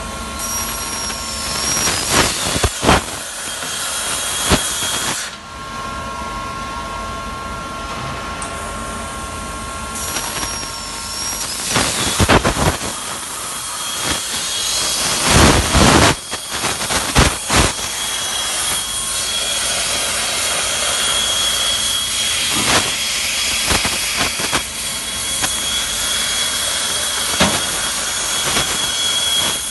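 Oxytome 30 HPC CNC cutting machine at work: a steady hiss of the cutting torch's gas with thin, steady whining tones from the machine. A few sharp cracks and pops stand out, clustered about halfway through.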